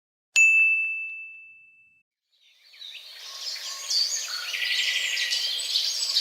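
A single bright ding sound effect, a bell-like high tone that fades away over about a second and a half. A couple of seconds in, a chirping bird ambience fades in and keeps going.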